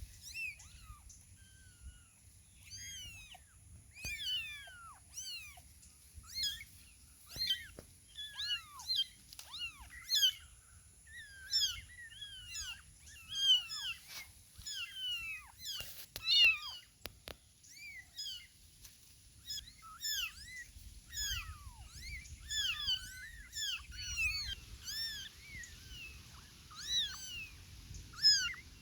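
A litter of young kittens meowing all at once: many short, high-pitched mews overlapping, several a second, without a break.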